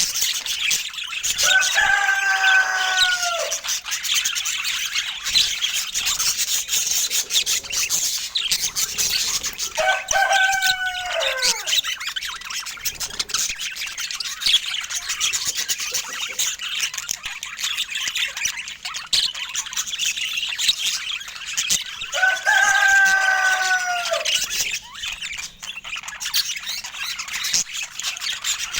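Budgerigars chirping and chattering continuously. Three longer, lower calls, each about two seconds and falling in pitch at the end, come a few seconds in, about ten seconds in and near twenty-two seconds in.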